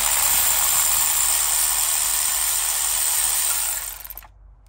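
Cordless electric ratchet running steadily on a long extension and 14 mm socket, spinning a spark plug out of the cylinder head. It stops suddenly about four seconds in.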